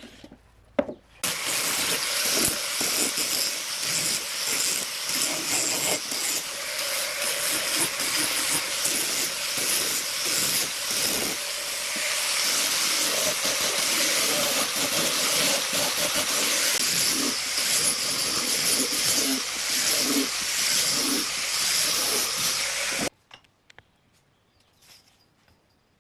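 Handheld electric sander running against the edge of a bent wooden strip ring: a steady whirring hiss with the scrape of abrasive on wood. A few knocks come first, and the sander starts about a second in and stops abruptly near the end.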